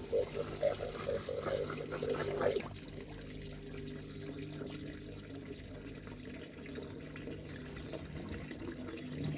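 Water pouring and trickling through a DIY pond filter fed by a pump, with a steady low hum underneath. The splashing is busier for the first couple of seconds, then settles to an even flow.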